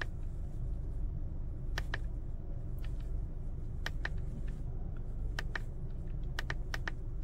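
Sharp clicks of steering-wheel switch buttons pressed one at a time at irregular intervals, about eight in all, over the low steady hum of the Honda WR-V's engine idling.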